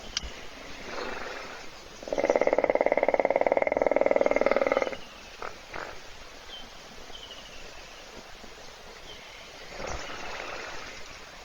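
Hippopotamus snoring: a faint breath about a second in, then one loud buzzing snore lasting about three seconds, with another faint breath starting near the end. Faint bird chirps come in the quiet between.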